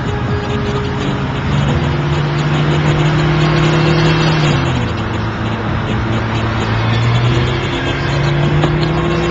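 A car engine and road noise heard from inside a moving car. The engine's steady note drops about five seconds in, then climbs again a couple of seconds later as the car speeds back up.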